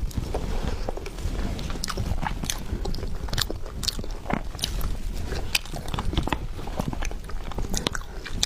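Close-miked chewing and biting of a tiger skin roll, a sponge cake roll, with many short, irregular mouth clicks.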